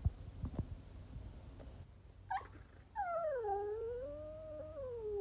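Siberian husky 'talking': a brief rising yip about two seconds in, then a long, wavering howl-like call that slides down in pitch and holds.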